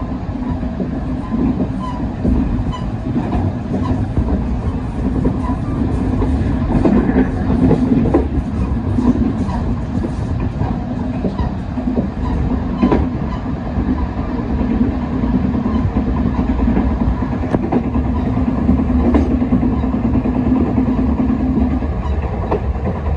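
Chu-Kuang express passenger car running along the line, heard from inside the rear car: a steady rumble of wheels on rail with scattered clicks over the track and a steady hum that fades near the end.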